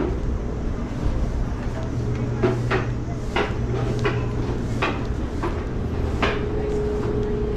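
Steady low rumble of a light-rail train, with a run of sharp clanks and knocks in the middle.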